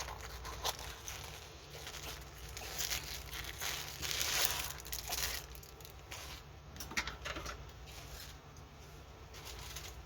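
Plastic packaging bags crinkling and rustling as they are handled, with scattered sharp crackles and one longer, louder rustle about four seconds in.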